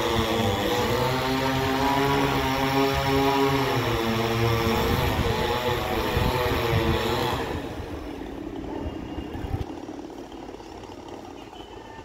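Two-stroke chainsaw running as it cuts into a tree trunk, its pitch wavering under load. It cuts off about seven seconds in.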